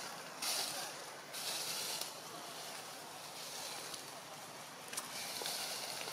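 Outdoor forest ambience: a steady high hiss, brighter for about a second near the start and again near the end.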